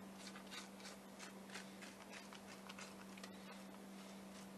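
Fork scraping the cooked strands of a baked spaghetti squash out of its shell: a quick, irregular series of faint scrapes, a few a second, over a faint steady hum.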